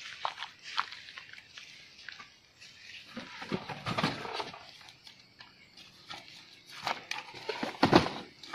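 Irregular knocks, scrapes and rustles of wooden boards, sacking and a stick being handled at a small wooden dog house, loudest about halfway through and again near the end.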